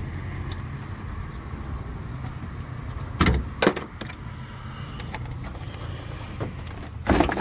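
Sharp clanks and clicks of tools and parts being handled in a car's engine bay, two close together about three seconds in, another a little later and a pair near the end, over a steady low background rumble.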